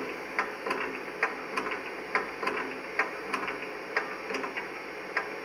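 Sound-equipped model of the class 44 steam locomotive 044 404-2 running light with no train, through its loudspeaker: a steady hiss with soft, regular ticks about two a second.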